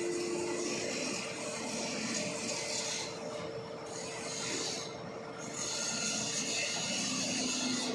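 Concrete pump truck machinery running: a steady whine with a rasping hiss over it. The hiss drops out briefly twice.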